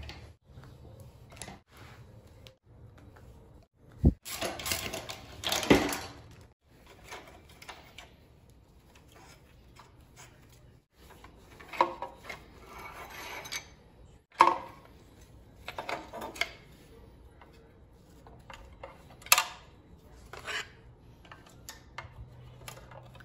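Intermittent hand-work noise on a scooter's front fork: a ratchet and socket on the fork bolt, then metal and plastic parts knocking, clattering and scraping as the stem and fork are worked loose. A few sharp knocks stand out, and there is a longer scraping rush around five seconds in.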